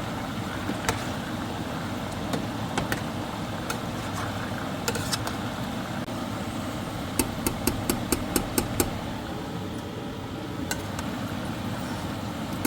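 Beef liver frying in oil in a covered pan: a steady sizzle with scattered sharp pops, and a quick run of about eight clicks a little past the middle.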